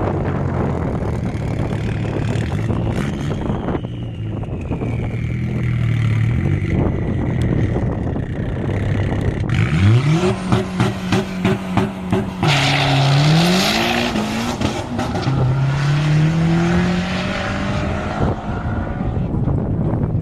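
Car engine running steadily, then revved hard about ten seconds in, with a rapid stutter at the top of the revs, a brief burst of hiss, and further rises in revs near the end.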